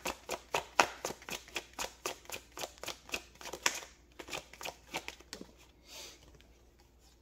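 Tarot cards being shuffled by hand, a quick papery snapping about four times a second that slows, thins out and fades after about four seconds.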